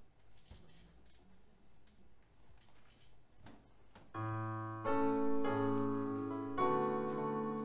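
Faint scattered clicks, then about four seconds in a keyboard set to a piano sound starts the introduction to a worship song, playing held chords that change every second or so.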